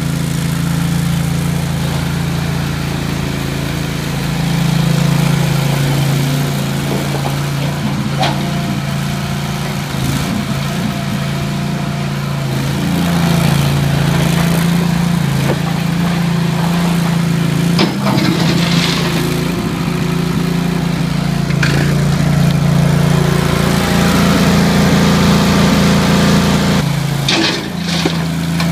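Ramrod 750A stand-on mini skid loader's small engine running steadily, its note dipping and rising at times as the machine is driven and worked. A few sharp knocks from the machine come through over it.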